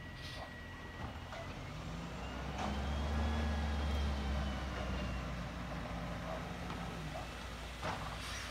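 Garbage truck's diesel engine idling and then revving up, the way it does to drive the hydraulics while collecting bins, from about two and a half seconds in before easing back. A faint whine rises and falls with it, and a few light clanks can be heard.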